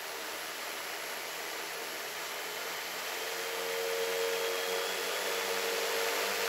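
Quadcopter's Tarot 4008MT brushless motors spinning their propellers at about 30% throttle, a steady airy whoosh that grows gradually louder, with a steady hum tone coming in about halfway through.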